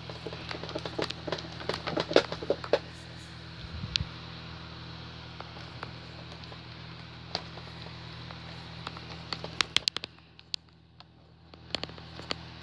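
Homemade slime being squeezed and kneaded by hand, giving a run of sharp clicks and pops that comes thickest in the first few seconds and again about ten seconds in.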